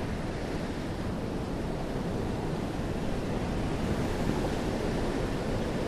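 Steady rushing of waves and wind.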